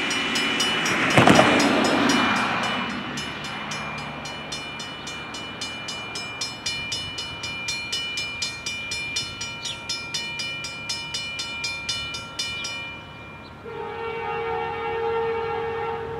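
Railroad grade crossing bell ringing rapidly at about three strokes a second, then stopping. About a second later, an approaching CSX freight's locomotive horn sounds a held chord.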